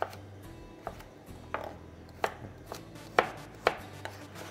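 Chef's knife chopping carrots roughly on a plastic cutting board: about eight separate knocks of the blade striking the board, uneven in spacing, the loudest a little after three seconds in.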